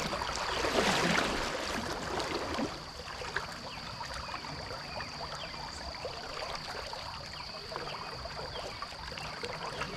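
Shallow trout-stream riffle running over a rocky bed, louder for the first couple of seconds and then steady. A faint, steady high-pitched tone sits over it throughout.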